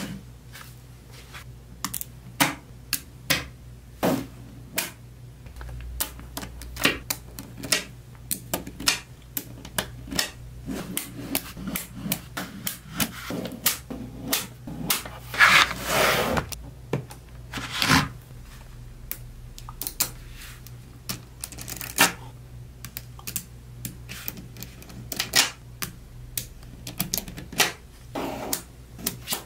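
Small neodymium magnet balls clicking and snapping together as slabs of them are handled and joined: irregular sharp clicks, often several a second, with a longer rattling clatter about fifteen seconds in.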